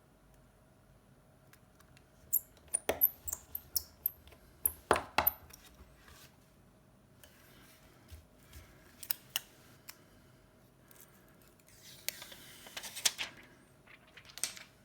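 Small metal tools and parts clicking and clinking as they are picked up and set down on a work surface. There is a quick run of sharp clicks a couple of seconds in, a few single clicks in the middle, and a short scraping rustle near the end.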